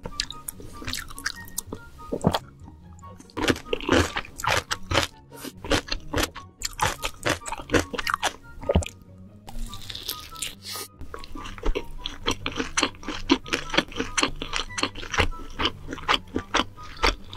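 Close-miked eating: loud, irregular crunching and chewing of food, with background music underneath.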